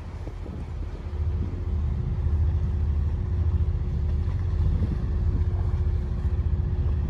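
Wind buffeting the microphone in an uneven low rumble, with a faint steady engine hum underneath.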